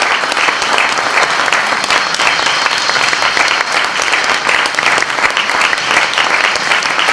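Theatre audience applauding: many hands clapping in a dense, steady stream at the close of a performance.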